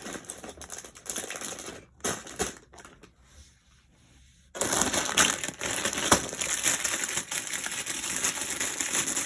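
Plastic LEGO parts bags being handled, crinkling and rustling. It drops quieter for a couple of seconds midway, then about four and a half seconds in turns to dense, continuous crinkling.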